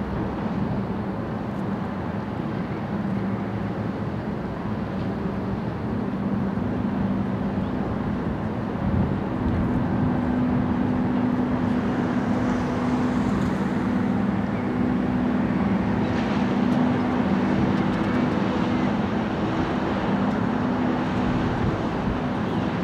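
The ferry Red Falcon's engines and propellers running as it manoeuvres at its berth: a steady low droning hum that gets a little higher and louder some six seconds in.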